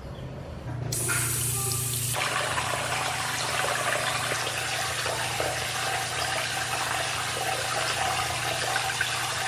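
Water running steadily from a sink tap, with a low hum underneath; it gets louder about a second in and then holds steady.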